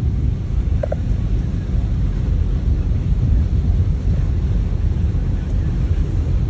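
Steady low rumble from outdoors in heavy rain and traffic, with a brief short high note about a second in.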